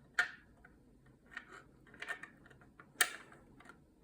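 A few sharp clicks and knocks of hard 3D-printed plastic parts as the shotgun's shell lifter is worked into its holes in the receiver. The loudest is about three seconds in.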